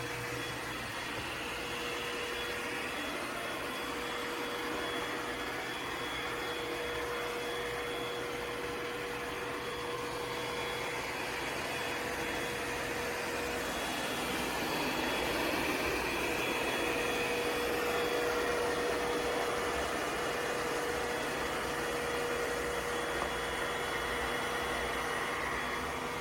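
ECOVACS DEEBOT X9 PRO Omni robot vacuum and its station running: a steady motor-and-air whir with a faint high whine. It starts abruptly and cuts off suddenly.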